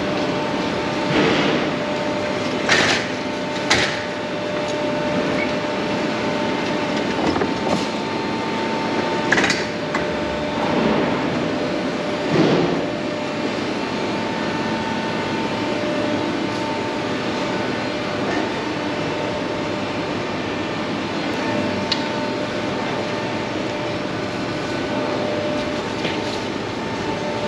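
Steady hum and rush of a large warehouse store's room noise and ventilation, with a few sharp knocks and clatters in the first ten seconds.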